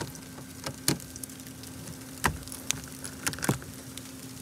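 A socket wrench working on the side mirror's 10 mm bolts: a few scattered, irregular metal clicks, over a faint steady hum.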